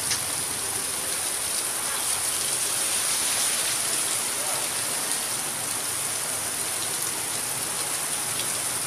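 Steady rain falling on a wet, puddled street.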